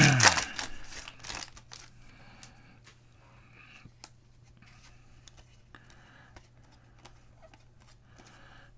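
Foil trading-card pack being torn open, the wrapper crinkling and tearing loudly for about the first second. Faint rustling and clicks of the cards being handled and sorted follow.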